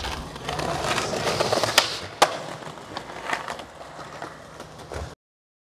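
Skateboard wheels rolling and rumbling over paving stones, with a couple of sharp clacks about two seconds in. The sound cuts off abruptly near the end.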